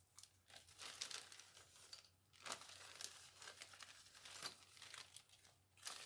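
Thin clear plastic bag crinkling faintly as it is opened and handled, in irregular crackles.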